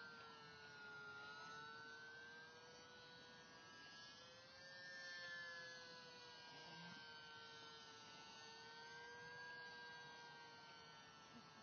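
Icon A5 RC model seaplane in flight, its motor and propeller giving a faint, steady whine. The pitch drifts gently up and down as the plane moves about the sky, a little louder about five seconds in.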